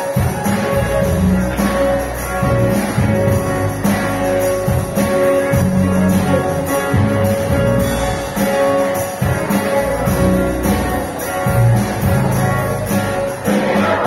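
Live church band playing a song: keyboard, bass, guitar and drums, with a held note over changing bass notes and a steady high jingling beat. The music shifts near the end.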